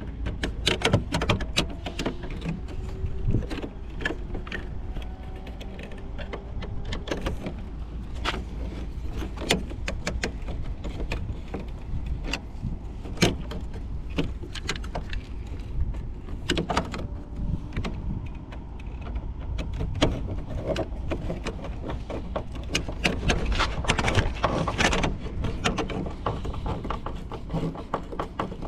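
Irregular clicks, knocks and rattles of a plastic cover and its screws being handled and fitted back in place after a bulb change, over a steady low rumble.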